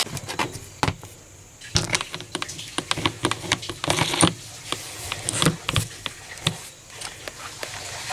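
Irregular small clicks and light clatter of parts being handled and fitted onto an angle grinder's threaded spindle while a stack of cloth buffing discs is put on.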